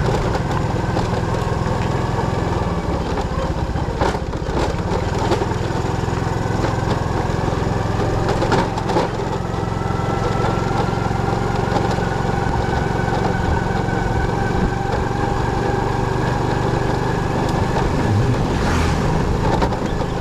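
Motorcycle engine running steadily while riding, with a faint whine that slowly rises in pitch over the second half.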